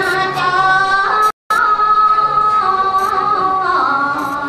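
A woman singing a slow melody into a microphone, holding long notes and sliding between pitches. The sound cuts out completely for an instant about a second and a half in.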